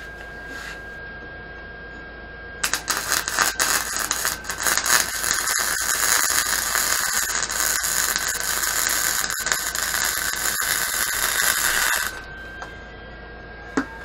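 MIG (wire-feed) welder arc crackling and sizzling as a weld is run on the square-tubing mini bike frame, starting a few seconds in and cutting off sharply about nine seconds later. A faint steady high whine runs before and after it, and a single click comes near the end.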